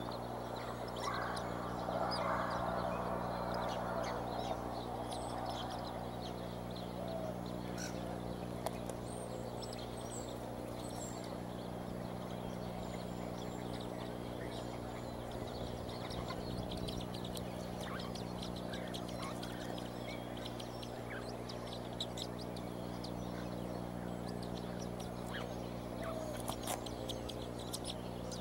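Young eagles in the nest chirping and peeping faintly, with a louder, rougher call between about one and four seconds in, over a steady electrical hum.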